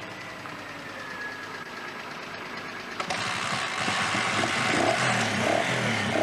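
Motorbike engine running, quiet at first, then suddenly much louder about three seconds in, its pitch rising and falling as it revs.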